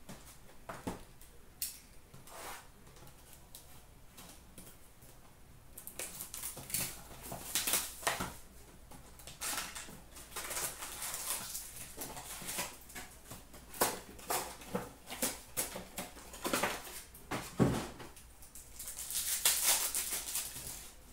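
Trading card packaging being handled and opened: a few light taps at first, then cardboard rustling and scraping as a hobby box is opened from about six seconds in, and the crinkle of a foil card-pack wrapper near the end.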